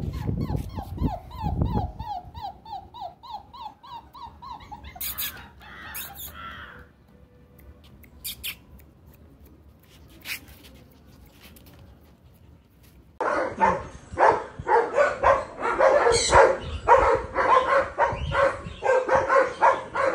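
Dog sounds: a run of quick, high, rising puppy yelps repeating several times a second over the first few seconds, then a quiet stretch, then, from about two-thirds of the way in, loud rapid barking.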